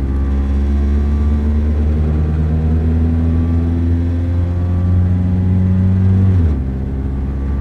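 Car engine heard from inside the cabin, its note climbing slowly and steadily as the car accelerates, then dropping suddenly a little after six seconds in as the revs fall.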